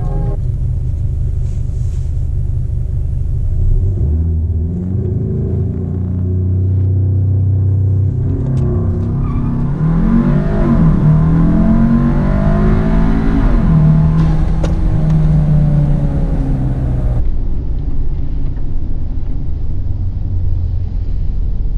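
Tuned turbocharged four-cylinder engine of a Volkswagen Golf SportWagen, heard from inside the cabin, accelerating hard under boost: its pitch climbs with the revs and drops back at the gear changes of the DSG gearbox.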